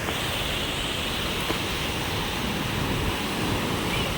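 Sea surf washing in a steady rush, with wind rumbling on the microphone.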